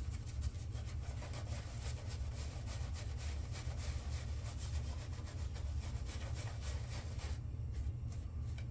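Shaving brush scrubbing soap lather into a stubbled face: quick, continuous scratchy rubbing strokes that turn duller about seven seconds in. A steady low hum sits underneath.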